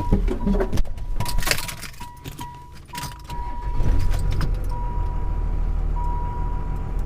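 Car engine running with a low rumble that grows stronger about four seconds in, while an electronic warning chime beeps at one pitch in uneven on-off dashes. Several sharp clatters and clicks sound in the first few seconds.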